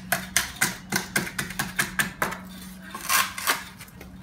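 Steel trowel jabbing and scraping a stiff 2-to-1 sharp sand and cement dry-pack mix into the gap above a lintel: a quick run of sharp clicks and scrapes, then two longer scrapes about three seconds in.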